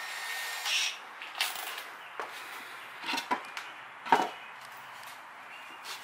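Workshop handling noise: a scraping rustle, then several separate short wooden knocks and clatters, the sharpest about four seconds in, as a small wooden block and a cordless drill are picked up and set down. No drill motor runs.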